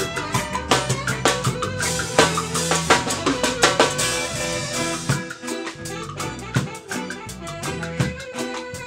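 Live rock band playing an instrumental passage on drum kit and electric bass, with no singing. Dense drumming with a cymbal wash and held bass notes for about the first half, then the bass drops away and the drum hits turn sparser.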